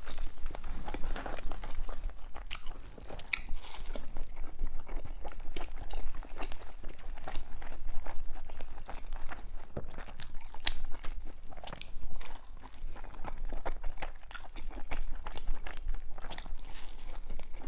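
A person eating close to the microphone: irregular biting, crunching and chewing sounds with many small clicks.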